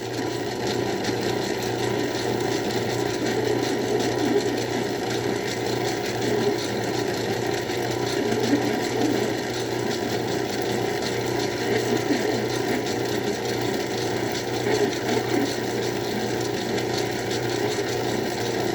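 Craftsman 109 lathe running steadily with a 1/2-inch drill bit feeding into aluminum: a constant motor hum under the scratchy rasp of the bit cutting. The bit is dull, throwing one big chip from one flute and little from the other.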